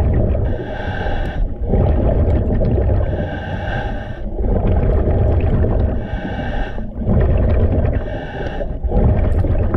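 Scuba diver breathing through a regulator underwater. The hiss of each inhalation alternates with the rumble of exhaled bubbles, over several breaths.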